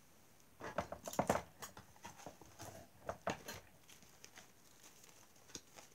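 Hands handling a deck of cards and its box on a table: a scattered run of light taps and clicks, thickest about a second in and again around three seconds.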